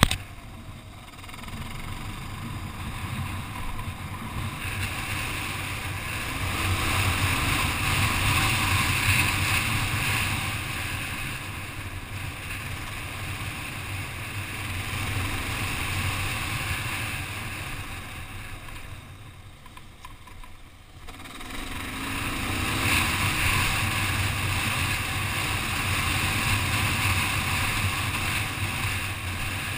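Kawasaki KLR650's single-cylinder four-stroke engine running under way on a dirt road, mixed with wind rushing over the microphone. The sound swells and fades with the throttle, drops away for a couple of seconds about two-thirds of the way through, then picks up again.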